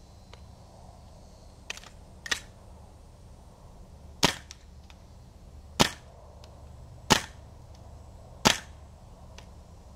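Gas blowback airsoft gun, fed from a gas magazine, firing single shots on semi-auto: five sharp cracks roughly a second and a half apart, with a fainter shot just before them.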